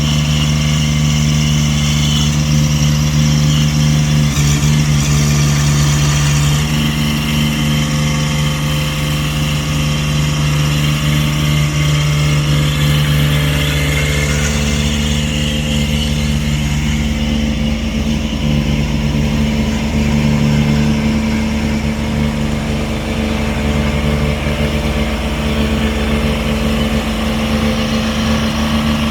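A motor engine running steadily, shifting slightly in pitch a few times.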